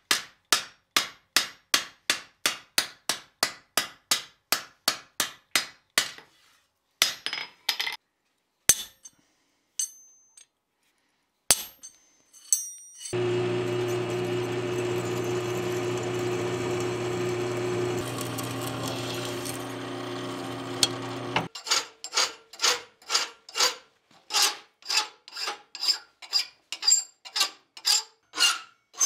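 Hammer striking a steel hook on an anvil in a fast, even run of about four blows a second, followed by a few scattered taps. About halfway through, a drill press runs steadily for about eight seconds, boring a hole through the flat steel hook. Then a hand file rasps back and forth over the hook's ball end in a vise, about two strokes a second.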